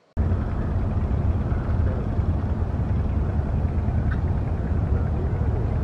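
Steady low outdoor rumble with a hiss over it, cutting in suddenly just after the start.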